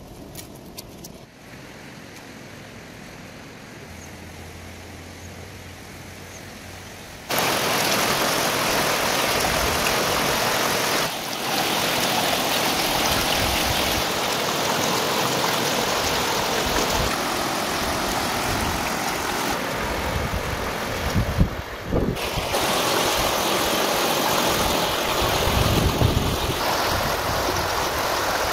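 River rapids rushing loudly in a steady, even roar of water that cuts in suddenly about seven seconds in, after a quieter stretch. A few low thumps and a sharp knock stand out about two-thirds of the way through.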